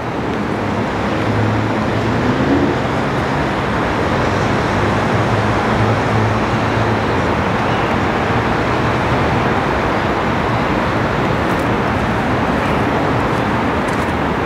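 Steady road traffic noise: a constant wash of tyre and engine sound from passing cars, with a low hum underneath.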